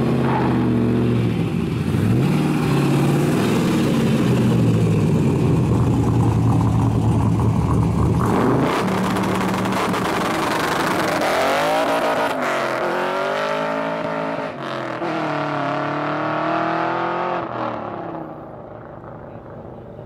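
LS2 V8 in a third-generation Camaro held at steady revs on a two-step launch limiter, then launching about eight seconds in. It accelerates away through the gears, the pitch climbing and dropping at each shift, and fades as the car pulls away.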